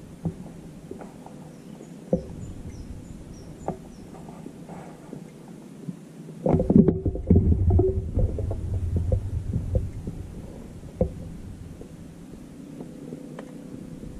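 Handling noise of a rifle-mounted scope camera: scattered sharp clicks and knocks, with a louder stretch of low rumbling and rustling about halfway through as the rifle is moved. Faint high bird chirps about two to three seconds in.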